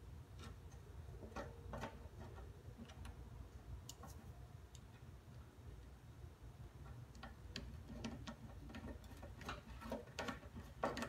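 Hand screwdriver turning a screw to fasten the discharge shield onto the lawn mower deck: faint, irregular clicks and ticks, a little more frequent near the end.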